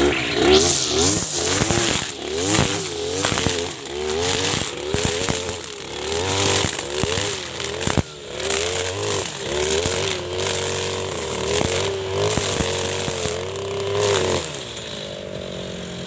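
Backpack brush cutter engine revving and labouring up and down as its spinning nylon trimmer line cuts into dense shrubs and saplings, with sharp cracks from the line striking stems. About a second and a half before the end it drops back to a steady idle.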